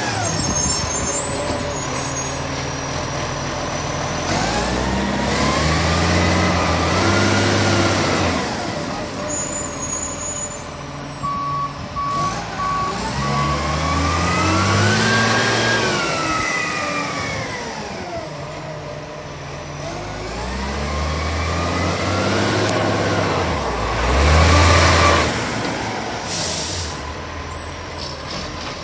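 Heavy garbage truck engine, its pitch rising and falling three times, with short bursts of air hiss and a brief run of reversing beeps about eleven seconds in.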